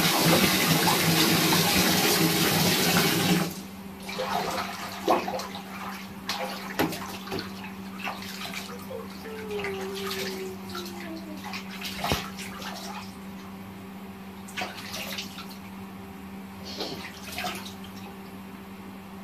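Tap water pouring into a plastic basin, cut off abruptly about three and a half seconds in. Then quieter splashing of bathwater as a baby is washed.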